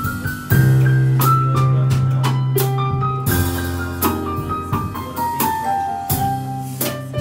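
Digital stage piano playing a stepping single-note melody over sustained low chords, with a drum kit keeping a light bossa nova beat of frequent cymbal and snare hits.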